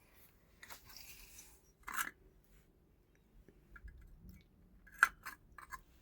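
Faint handling noises: one short knock about two seconds in, then a quick run of four or five light clicks about five seconds in.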